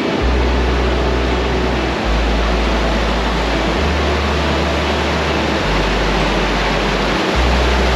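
River in full flow pouring over a rock-ledge waterfall into white water: a steady, loud rush of water.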